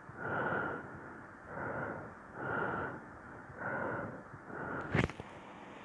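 Wooden spatula stirring lamb tripe and black-eyed beans in a frying pan, scraping in strokes about once a second, with one sharp knock near the end.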